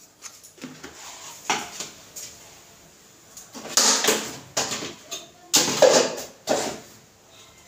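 Kitchen handling noise out of sight: three bouts of short scraping, clattering strokes, about a second and a half in, around four seconds and around six seconds, the last two the loudest.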